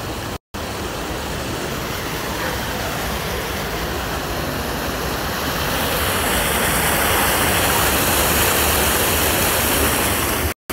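Water rushing and churning as it pours through a concrete check gate in a canal, a steady whitewater rush that grows louder about halfway through. The sound cuts out for a moment just after the start and again just before the end.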